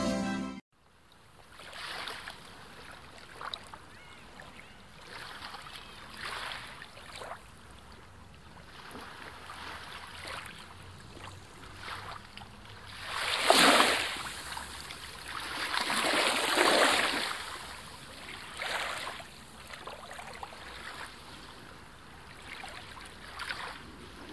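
Sea waves washing in: a rushing noise that swells and fades every few seconds, with the two biggest swells a little past halfway.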